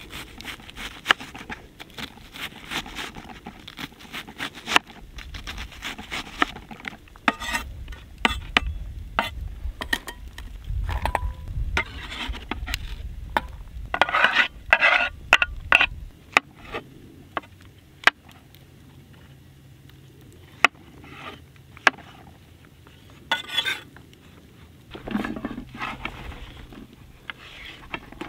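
Kitchen knife chopping an onion on a wooden cutting board: irregular sharp knocks of the blade on the wood, with stretches where the blade scrapes across the board.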